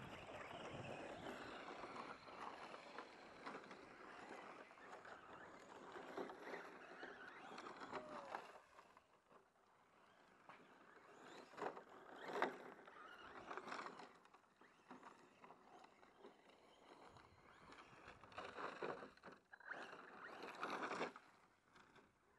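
Radio-controlled short-course trucks driving at a distance: a faint, uneven electric motor whine that swells and fades, with a few short knocks.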